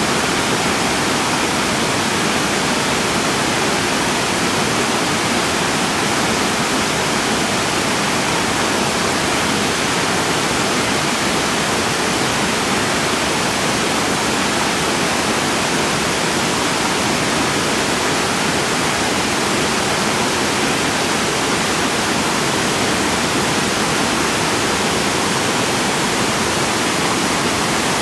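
Fast-flowing stream water rushing over small waterfalls and cascades: a loud, steady rush of water that does not change.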